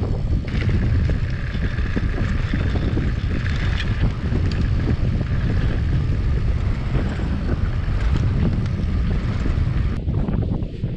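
Wind rushing over the microphone of a moving bicycle: a steady low rumble with a higher hiss from the tyres on the road, changing abruptly near the end.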